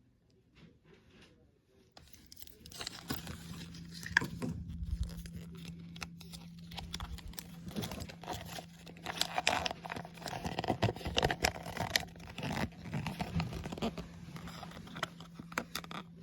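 Thin plastic packaging crinkling and tearing as a gachapon capsule prize's bag is handled and opened, with scattered clicks and scrapes. It starts about two seconds in and is busiest in the middle.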